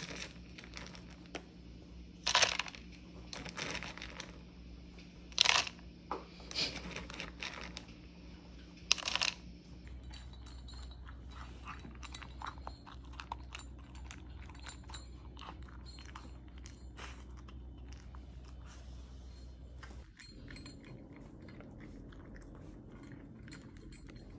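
Dry dog kibble scooped with a plastic spoon into a plastic measuring cup, in about five sharp clattering pours over the first nine seconds. Then miniature poodles crunching dry kibble from a plastic bowl, a fast run of small crunches.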